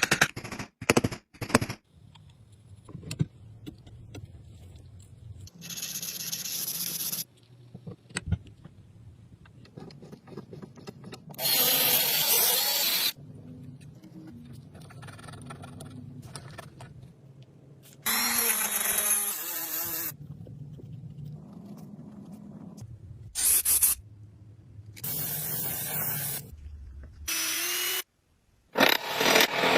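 Workshop restoration sounds in short cut-together bursts: scraping and rubbing on metal or wood, and a power tool running in several loud stretches that start and stop suddenly.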